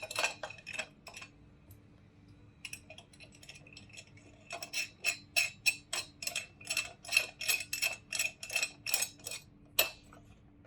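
Small metal clicks from fog-light mounting hardware being fastened: a few scattered ones at first, then an even run of about three clicks a second for some five seconds, ending with one sharper click.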